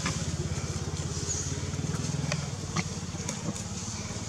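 A motor idling with a low, steady, rapidly pulsing rumble, and a few faint clicks.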